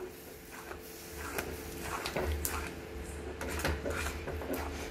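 Metal spatula scraping and clicking against an aluminium kadai as thick moong dal halwa is stirred, in irregular strokes, over a steady low hum.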